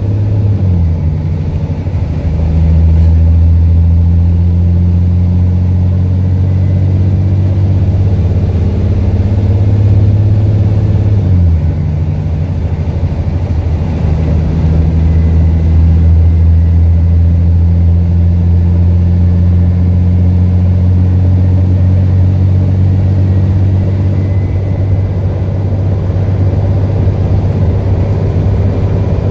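Alexander Dennis Enviro400 double-decker bus's diesel engine pulling at road speed, heard from inside the saloon as a loud, low drone from a blown exhaust. The engine note drops twice, just after the start and about eleven seconds in, as the Voith automatic gearbox changes up.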